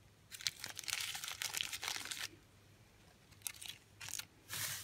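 Small plastic zip-lock bag of cacao nibs crinkling as it is handled, in about two seconds of crackling, then a pause and a few short rustles near the end.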